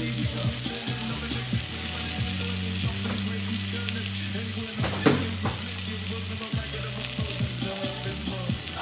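Salmon fillet and shrimp sizzling steadily in a hot cast-iron grill pan, with a single knock about five seconds in.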